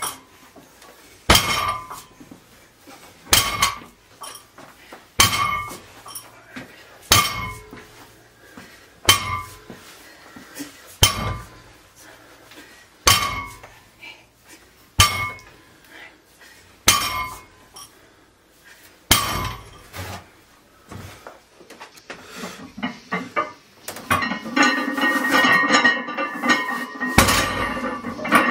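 A loaded barbell's metal plates clanking on the floor as deadlift reps are set down, about ten times roughly every two seconds. Music comes in about 24 seconds in.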